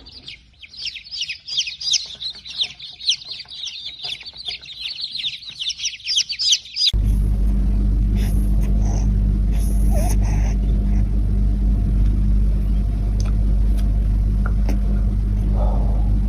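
Many small birds chirping rapidly and high, cut off suddenly about seven seconds in by a steady low hum.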